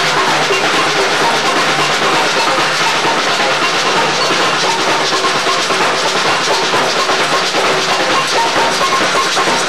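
Live samba band playing, with drums and percussion carrying a steady, unbroken rhythm.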